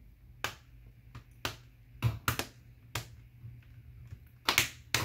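Plastic clips of an HP Pavilion x360 laptop's palm rest snapping into the base one after another as it is pressed down around the edges: a string of sharp, irregular clicks, several close together near the end.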